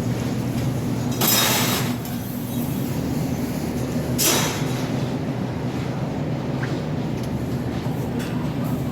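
A steady low mechanical hum, like a running vehicle, broken by two short hissing bursts: one about a second in and a shorter one about four seconds in.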